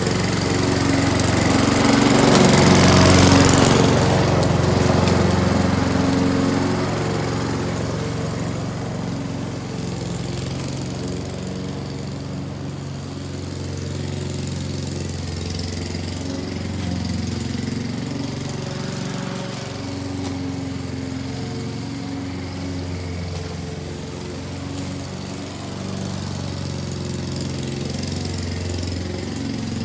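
Gas walk-behind lawn mower engine running steadily while cutting thick grass. It is loudest about three seconds in, then a little quieter and even as the mower moves away across the yard.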